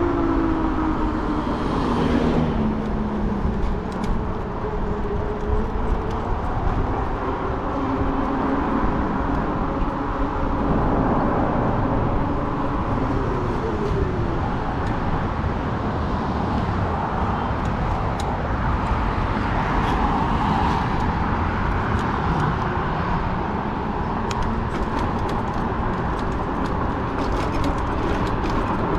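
Steady ride noise from a fat-tire e-bike under way: wind rumbling on the microphone and tyre noise. A pitched hum falls in pitch over the first few seconds.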